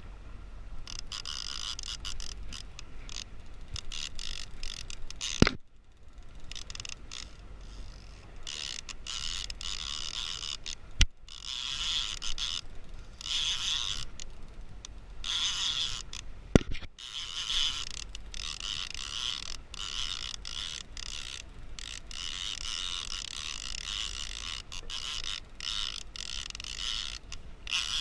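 Fishing reel ratcheting in repeated spurts, with short gaps between them and three sharp clicks along the way.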